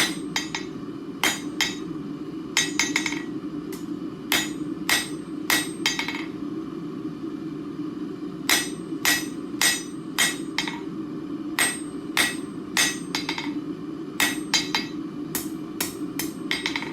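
Hand hammer striking a hot steel bar on an anvil, drawing out a taper. The blows ring and come in runs of about two a second, with a pause of about two seconds near the middle. A steady low hum runs underneath.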